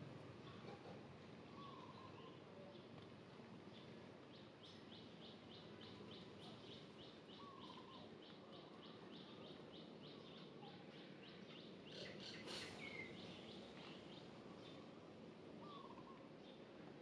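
Faint outdoor ambience with birds calling: a quick run of repeated high notes, about four or five a second, lasting several seconds, and scattered short chirps, one a little louder about two-thirds of the way in.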